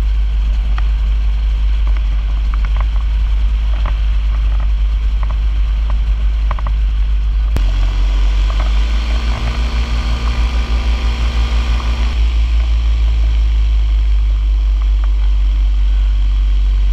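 Tandem paramotor trike's engine running steadily in flight, with heavy wind rumble on the microphone. About seven and a half seconds in, the sound breaks off abruptly at an edit, and the engine hum then sits a little higher.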